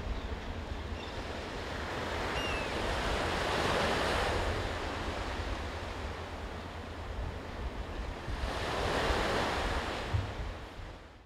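Ocean surf washing onto a sandy beach: two waves swell and break, about four seconds in and again about nine seconds in, over a steady low rumble. The sound stops abruptly at the very end.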